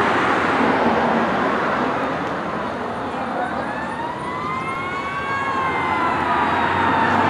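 Fire truck siren wailing, its pitch sliding slowly down and then up and down again, over a loud steady rushing noise.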